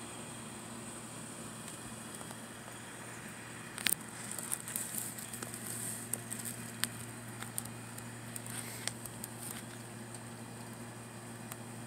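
Irregular crackling and clicking, starting about four seconds in and dying away after about nine seconds, over a steady low hum.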